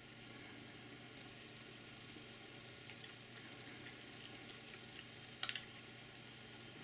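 Red fox grooming its fur with its teeth: faint nibbling and licking ticks over a low hiss, with a brief louder burst of clicks about five and a half seconds in.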